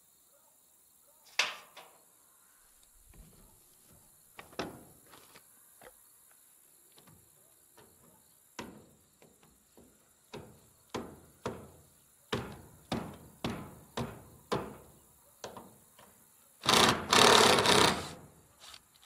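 A run of sharp knocks, about two a second, on the wooden frame of a homemade chicken tractor. Near the end a cordless drill-driver runs loudly in two short spurts.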